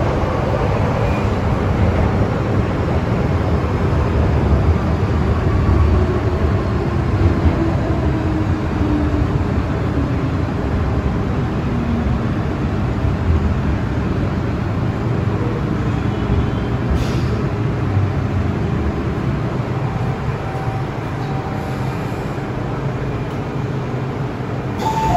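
Metro train running with a steady low rumble, its motor whine falling slowly in pitch as it slows into the station. Short chime tones start right at the end.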